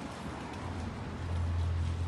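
Outdoor traffic noise: a steady hiss with a low engine rumble that swells about a second in, as of a vehicle passing.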